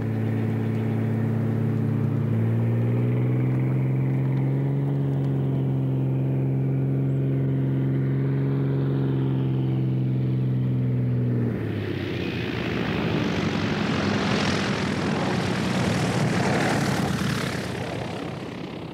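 Light propeller plane's engine running with a steady drone. Its pitch steps up about two seconds in, and the drone cuts off abruptly about eleven seconds in. It is followed by a rushing noise that swells and then fades.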